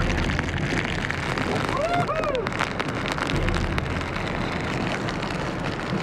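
Heavy rain pelting down in a violent storm, hissing over the water and spattering the microphone, with a low rumble underneath. A man gives a brief whooping yell about two seconds in.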